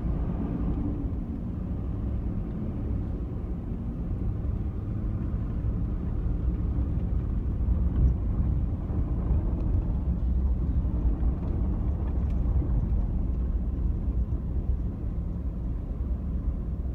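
Vehicle driving: a steady low rumble of engine and road noise.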